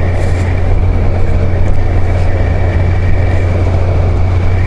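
Kawasaki Z900's inline-four engine running steadily at cruise while the motorcycle rides along the road, with wind noise rushing over the microphone.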